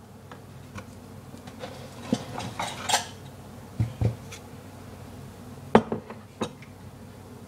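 A cooking pan and kitchen utensils being handled: scattered clinks and knocks, with two dull thumps about four seconds in and a sharp clink near six seconds.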